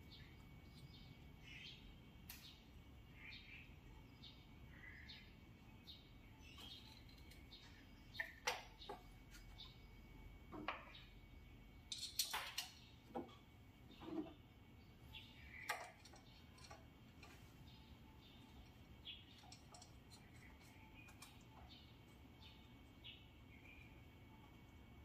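Near silence with a few faint, sharp clicks and knocks, most of them clustered in the middle, and scattered faint short chirps.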